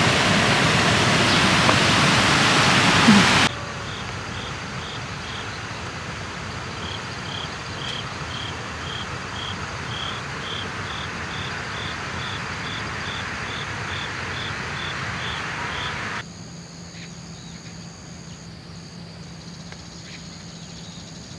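A loud, steady rushing noise that cuts off about three and a half seconds in, then an insect chirping over a soft outdoor hush in an even train of short, high chirps at one pitch, about two a second. Near the end the chirping stops and a quieter, steady background with a faint high whine remains.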